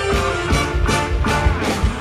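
Live mor lam band music through the stage sound system, with a steady drum beat of about four strokes a second under held keyboard and horn tones.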